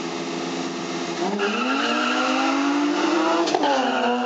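Two BMW E30s launching side by side from a drag-race start, one with an M20 straight-six. The engines hold steady revs, then rise in pitch as the cars pull away about a second in, with tyres squealing. A gear change drops the pitch about three and a half seconds in, and it climbs again.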